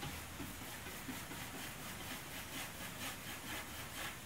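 Bristle paint brush scrubbing glaze onto a varnished painted wooden drawer front: a soft, scratchy swishing in quick repeated strokes.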